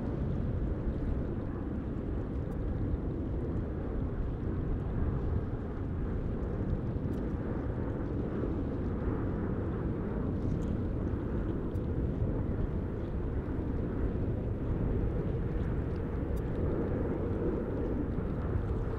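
Steady low rumble of an Airbus A350-900's jet engines as it comes in to land, with no rise or fall.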